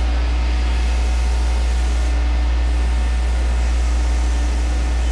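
ANCA CNC tool grinder fluting a solid carbide end mill under a flood of straight grinding oil. The sound is a steady hiss of wheel and coolant spray over a constant low machine hum.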